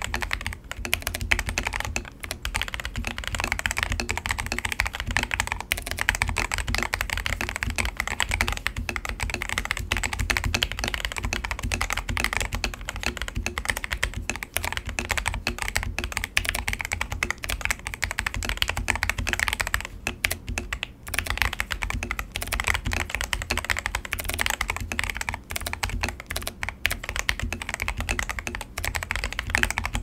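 Continuous fast typing on a custom mechanical keyboard: a Lychee G80 with Krytox 105-lubed Gateron White Pro linear switches, lubed stabilizers, painter's tape mod and off-white XDA keycaps. It is a dense, even stream of keystrokes with a brief pause about two-thirds of the way in.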